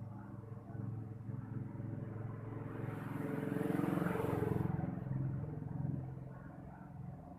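A steady low motor hum. It grows louder with an added hiss from about three to nearly five seconds in, then settles back.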